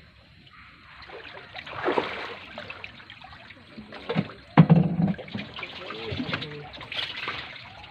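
Water trickling and splashing as a wet fishing net is lifted and handled by hand, with a louder thump about four and a half seconds in.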